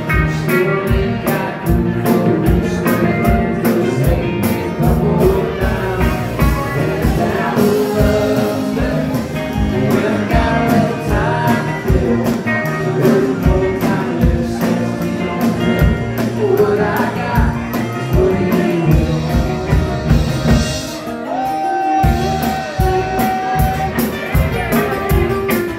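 Live country-blues band playing: a man singing over strummed acoustic guitar, fiddle and a drum kit keeping a steady beat. A long held note rings out near the end.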